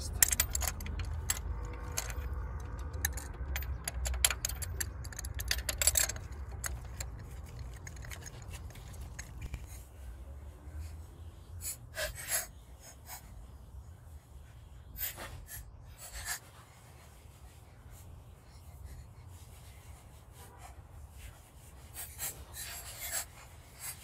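Socket and extension clicking and scraping against metal as new spark plugs are turned in by hand in the plug wells. A dense run of small metallic clicks comes over roughly the first ten seconds, then scattered single clicks.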